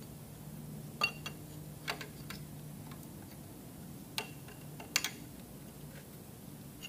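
About half a dozen sharp metallic clicks and clinks, irregularly spaced, as a 19 mm wrench is worked on a brass fitting threaded into the engine block, over a faint steady low hum.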